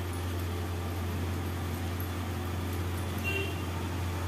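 A steady low hum under a faint even hiss, with a brief faint high tone a little after three seconds in.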